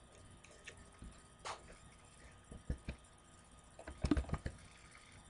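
Scattered key clicks as numbers are typed into a CNC control's keyboard, a few single presses and then a quick cluster about four seconds in.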